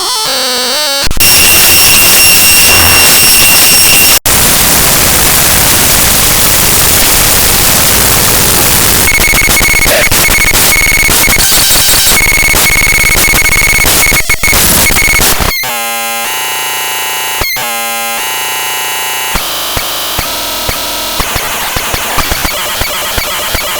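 Raw binary data from a DMG disk image played back as audio: loud, harsh digital noise and static that switches abruptly between textures every few seconds. High steady tones sound over the hiss for the first few seconds, a buzzing stretch with brief dropouts comes about two thirds in, and quieter hiss with scattered clicks follows near the end.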